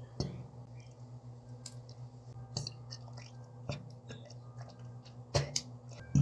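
A cat's mouth noises: a few sharp clicks and smacks a second or two apart, the loudest near the end, over a steady low hum.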